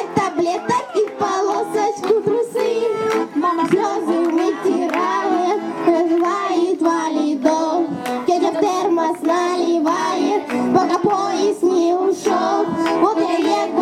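Children singing a song together over a musical accompaniment.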